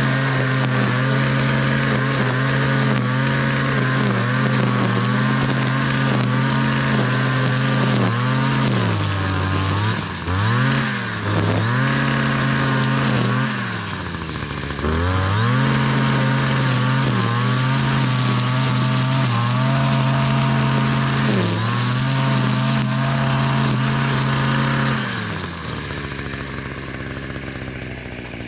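Stihl MM56 multi-tool's two-stroke engine driving a nylon string trimmer head at high revs through grass. The revs dip and climb back several times as the throttle is eased and reopened, then drop to a lower, quieter run near the end.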